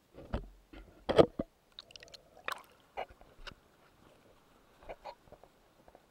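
Irregular knocks and clicks picked up underwater through a GoPro's waterproof housing. The loudest knock comes about a second in, just after a dull low thud.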